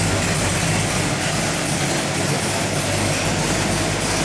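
Small-block Chevy 383 stroker V8 (a 519 hp dyno build) running steadily at a constant speed on an engine dyno, with no rise or fall in revs.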